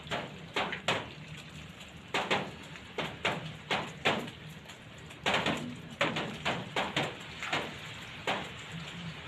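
Metal tongs clacking and knocking against a pan as spaghetti is tossed in sauce: irregular sharp clicks, about one or two a second.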